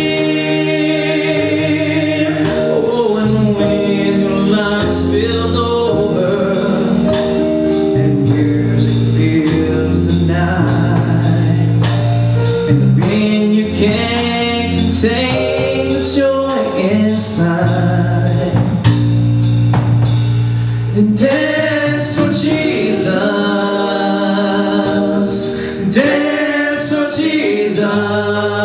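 A live praise band playing a worship song: a man singing lead over acoustic guitar, electric guitar and a drum kit, with a steady drum beat and sustained low bass notes.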